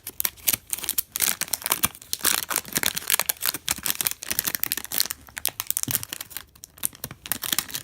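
Crinkly plastic packaging being handled and torn open, a dense irregular crackling and rustling as a new speedcube is unwrapped.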